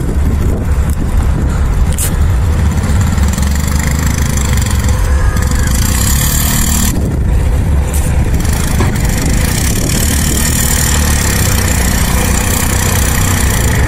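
Blizzard wind gusting, with a steady low rumble and a hiss that swells twice.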